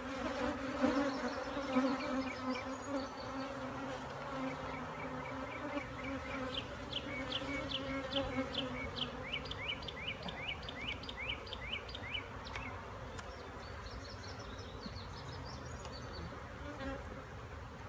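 Honeybees buzzing around an open hive, a steady droning hum that is strongest in the first few seconds and then eases a little.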